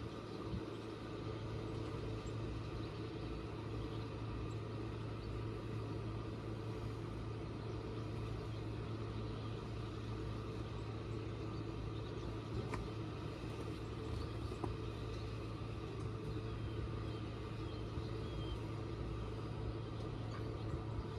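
Small fishing boat's motor idling steadily, a low even hum.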